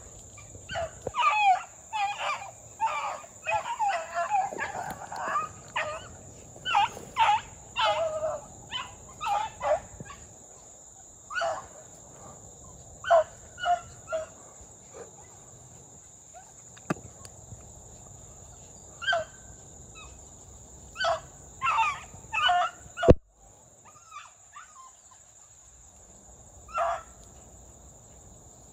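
A pack of beagles baying as they run a rabbit on the scent line. Several dogs' short calls overlap thickly for the first several seconds, then come scattered, with pauses between.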